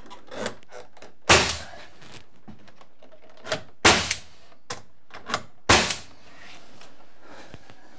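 Pneumatic finish nailer firing three sharp shots, about two seconds apart, driving nails through the door casing into the wall framing. A few lighter taps come between the shots.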